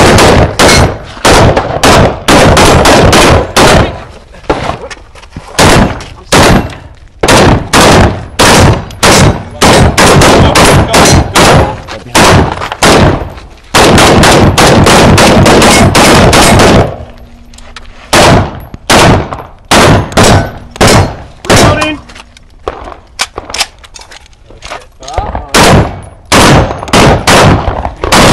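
Rapid semi-automatic gunfire from 5.56 mm AR-15-pattern pistols (PWS MK107 Mod 2), very loud shots in quick strings broken by short pauses, with the longest, densest string about halfway through.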